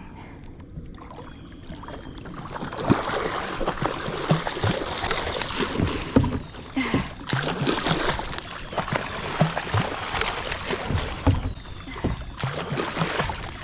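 Irregular splashing and many sharp hollow knocks on a kayak as a big catfish is landed at its side.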